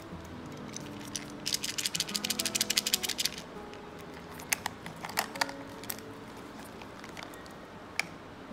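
A small tin rattling as it is lifted out of a bag: a quick, dense run of clicks lasting about two seconds, then a few scattered clicks and taps. Soft background music plays throughout.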